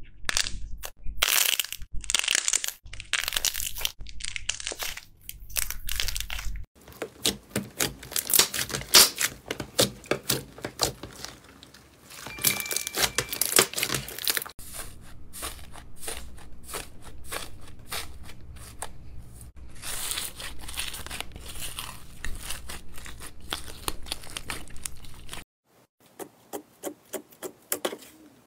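Hands squeezing, kneading and poking slime, giving dense runs of crackling, popping clicks. The texture of the sound changes abruptly three times.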